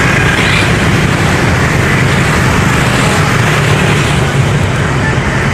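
Motorbike traffic running along the street, under a steady loud rush of wind rumbling on the microphone.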